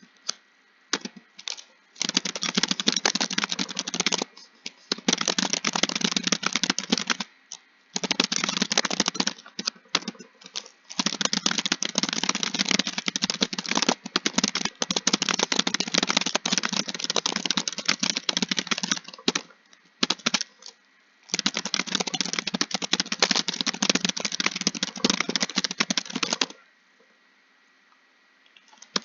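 Fast typing on a keyboard, dense runs of keystrokes lasting several seconds each, broken by short pauses, stopping for the last two seconds or so.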